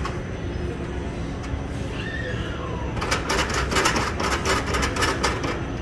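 Steady low shop background hum, then about three seconds in a couple of seconds of rustling and crinkling as suit fabric is pulled out and handled.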